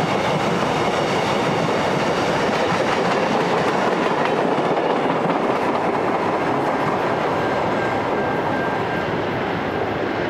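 Wheels of an unpowered Alstom X'trapolis electric train and its trailing van rolling along the rails as the tail of the train passes and draws away. The higher part of the noise drops off about halfway through.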